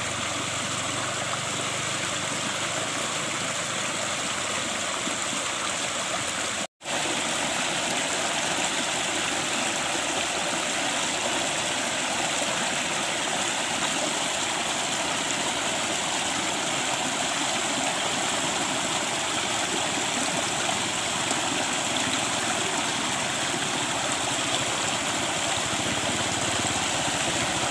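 Steady rushing and splashing of water in a small concrete-walled stream, where water pours in and churns the surface. The sound drops out for an instant about seven seconds in.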